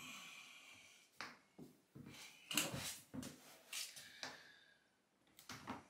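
Faint handling sounds of luxury vinyl planks: a run of short, uneven scrapes and light knocks as planks are slid and pressed into place on the floor. The first sound rings on for about a second.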